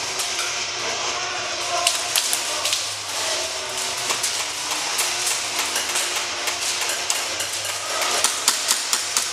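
Airsoft gunfire in an indoor arena: scattered sharp clicks and snaps of guns firing and BBs striking walls and barriers, echoing over a steady din, coming thicker in the last second or so.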